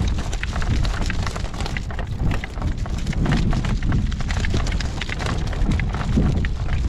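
Wind buffeting the microphone with a heavy rumble, over irregular rattling and knocking from a horse and cart at a trot.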